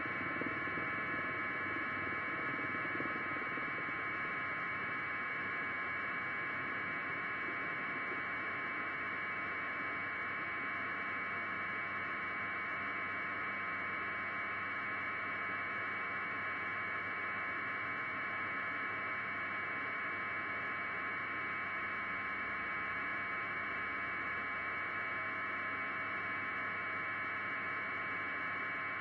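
Steady electronic hiss and hum, like static on a radio or broadcast feed, with a few faint steady tones in it and no change in level.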